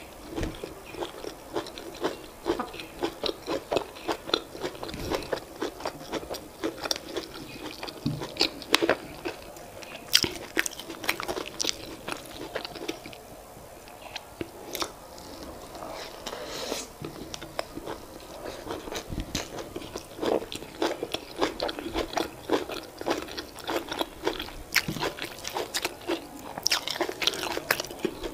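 A person chewing mouthfuls of boiled yam with leafy vegetable sauce close to the microphone: quick, irregular wet mouth clicks and smacks, with now and then a louder bite.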